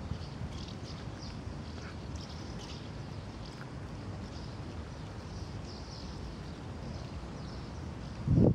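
Steady low rumble of wind on the microphone, with faint short ticks and a brief louder low burst near the end.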